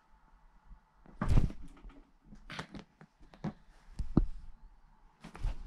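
A hand patting and scratching a woven rag rug while a cat swats at it with its paw: a handful of separate dull thumps and rustling scuffs on the fabric, the loudest about a second in.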